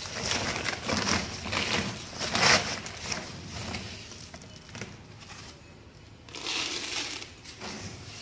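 A woven plastic feed sack rustles and crinkles as hands open it and scoop dry feed sticks and pellets from inside. The sound comes in noisy bursts, loudest about two and a half seconds in, with another burst around six and a half seconds in.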